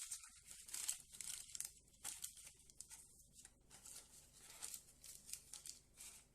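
Parchment paper crinkling and rustling in quick, irregular bursts as it is pressed and folded into a cheesecake pan, fainter in the second half.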